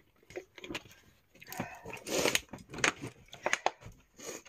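Drinking water from a plastic bottle, with faint swallowing clicks at first. After about a second and a half comes a second or so of rustling, then several sharp knocks as things are handled.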